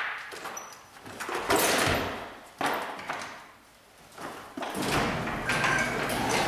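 Two thumps as the quad is pushed through a doorway. About 4.7 s in, a sectional garage door starts rolling up with a steady running sound.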